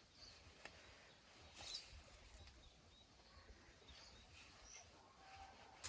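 Near silence: faint outdoor field ambience with a few scattered, faint bird chirps and a couple of soft ticks.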